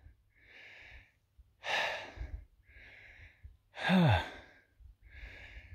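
A man breathing hard, out of breath from climbing a steep hill. Quieter in-breaths alternate with two loud sighing out-breaths about two seconds apart; the second is voiced as a falling 'phew'.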